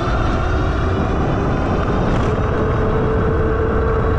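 Vitilan U7 e-bike's 750 W electric motor whining under acceleration, its pitch rising over the first two seconds or so and then holding steady, over a loud low rumble of wind on the microphone.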